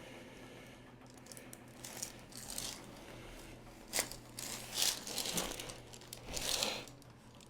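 Rustling and crinkling from movement on the chiropractic table, in a few short spells, with one sharp click about four seconds in.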